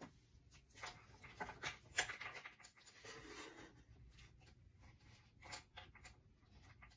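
Faint rustling and small clicks of a wig and its foam head stand being picked up and handled. The sounds come in scattered short strokes, with the busiest stretches about 1 to 2.5 seconds in and again about 5 to 6 seconds in.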